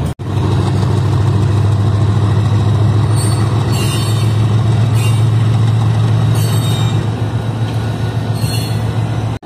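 Freight train pulling out: a steady low locomotive engine drone over wagon rumble, with several brief high-pitched squeals in the middle.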